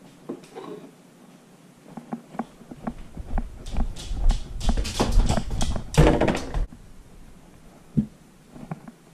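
Handling and carrying noise as a plate of food and a glass are picked up and carried across a room: scattered light clicks, then a few seconds of rustling and rumbling with sharp clatters in the middle, and a single knock near the end as they are set down on a table.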